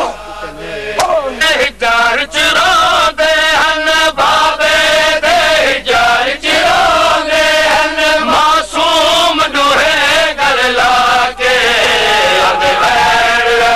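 A crowd of men chanting a noha in unison, with sharp slaps of hands striking bare chests (matam) in a steady beat of about two a second.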